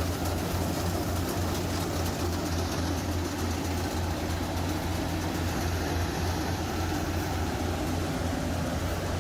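Rice combine harvester's diesel engine running steadily, a constant low hum with a hiss of machinery over it.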